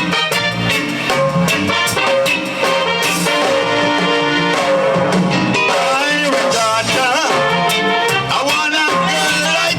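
Upbeat Caribbean band music with a steady drum beat; a voice sings over it in the second half.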